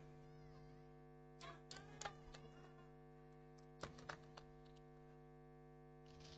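Near silence over a steady electrical hum, broken by faint sharp slaps in two short clusters, about one and a half to two and a half seconds in and again about four seconds in. The slaps are the wushu performer's stamps and slapping strikes on the competition carpet.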